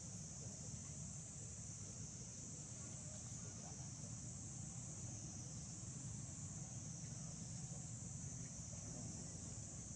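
Steady, high-pitched outdoor insect chorus buzzing without a break, with a faint low rumble underneath.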